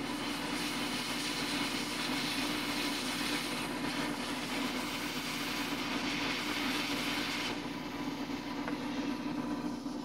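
Hot air rework station blowing steadily: a fan hum with a rushing hiss of air, the hiss easing about seven and a half seconds in. The hot air is melting the solder to fix a replacement micro USB port onto a circuit board.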